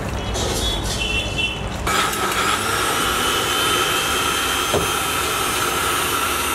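Electric mixer-grinder blender starting about two seconds in and running steadily with a high whine, blending milk and fruit for a milkshake.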